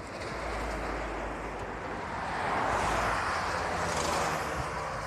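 Road traffic on an asphalt highway: a car passing at speed, its tyre and engine noise swelling to a peak about three to four seconds in and then fading.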